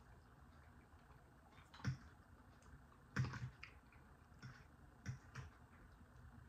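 Scattered light clicks and taps of forks on plates while people eat, the loudest about three seconds in.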